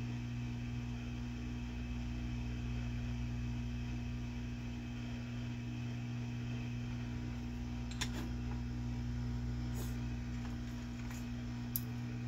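Steady electrical hum from a running motor or fan, with a couple of faint clicks, one about eight seconds in and one near the end.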